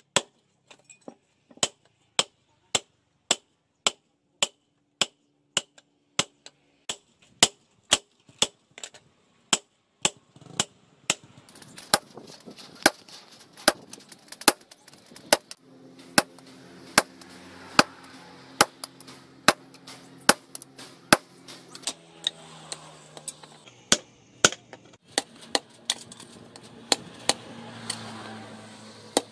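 Hand hammer striking a red-hot spring steel cleaver blank on a steel post anvil, a steady rhythm of about two sharp metallic blows a second.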